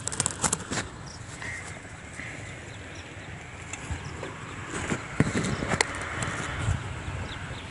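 Handheld phone recording's own sound: rustling handling noise with scattered sharp clicks and knocks, densest in the first second and again about five to six seconds in.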